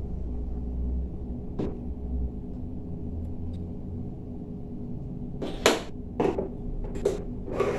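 Bottled lager being poured into pint glasses over a steady low hum, with a few short, sharp knocks or clinks in the last couple of seconds as bottles and glasses are handled.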